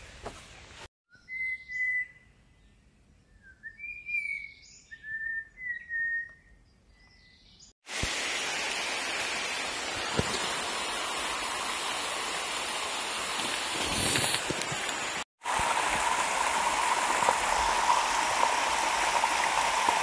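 A bird gives a series of short, whistled calls over a quiet background during the first few seconds. Then comes a steady wash of running-water noise, ending with a muddy monsoon stream pouring down over rocks.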